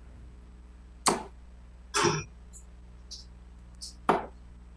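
Steel-tip darts hitting a bristle dartboard: three sharp thuds, about a second in, at two seconds and again near four seconds, over a low steady hum.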